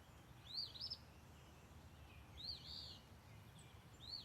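A songbird sings a short phrase of high, arched chirping notes three times, about every two seconds, over a faint low rumble of outdoor background.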